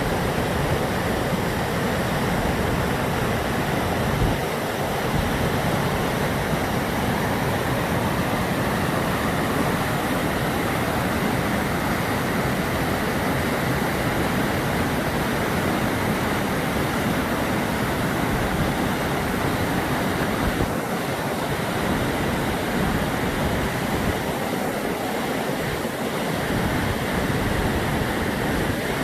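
Steady roar of rushing water from a waterfall on the Brúará river.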